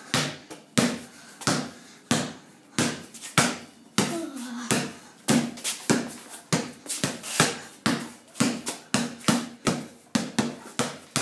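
Basketball dribbled on a concrete garage floor: a run of sharp bounces with a short echo after each, about two a second at first and quicker in the second half as the dribble moves speed up.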